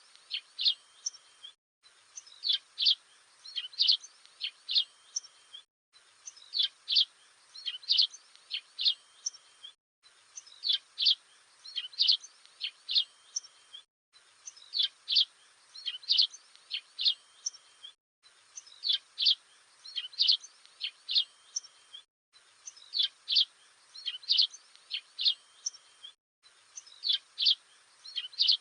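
A small songbird's sharp, high chirps, a short recording looped: the same run of half a dozen or so quick chirps repeats about every four seconds, with a brief silent break between repeats.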